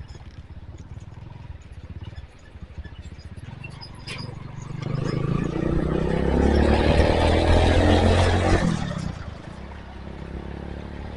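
Honda Tiger single-cylinder motorcycle riding in traffic. About five seconds in its engine noise climbs and gets much louder, with a slowly rising pitch as it accelerates past a truck, then drops off sharply near the end when the throttle closes.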